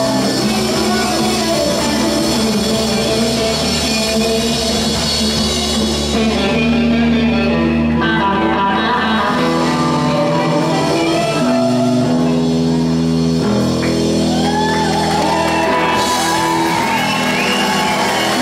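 Live amplified rock band playing electric guitars over bass and drums. The lead line is made of melodic notes that bend up and down in pitch.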